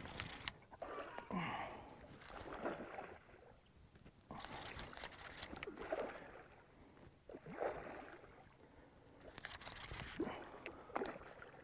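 A hooked redfish thrashing and splashing at the surface of shallow water while being fought on rod and reel, in several irregular bursts a second or two apart.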